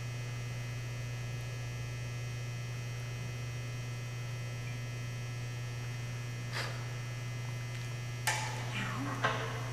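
Steady low electrical hum, with a few light clicks and taps near the end as the tap is worked out of the aluminium rod and lifted away.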